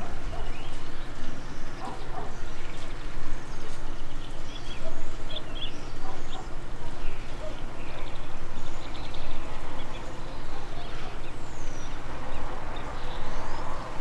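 Small birds chirping here and there, short scattered calls with one falling whistle near the end, over steady background noise and a low hum.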